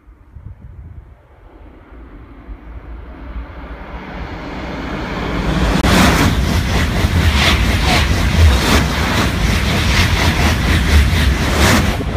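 TGV high-speed train approaching and passing at speed beneath: a rushing noise that swells over about six seconds, then a loud rush with a regular rapid beating as the carriages go by, easing slightly near the end.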